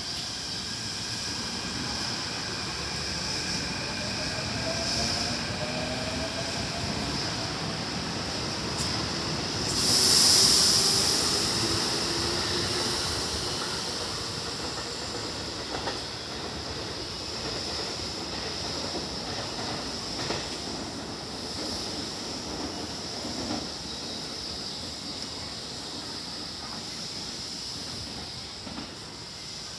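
Electric commuter train at a station, its motor whine slowly rising in pitch as it picks up speed, with a loud sharp hiss about ten seconds in and steady wheel-on-rail rumble after it.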